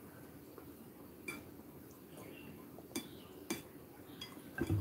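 Chopsticks and a plastic fork clinking against bowls: a few sharp, separate clinks spread out, then a soft knock near the end.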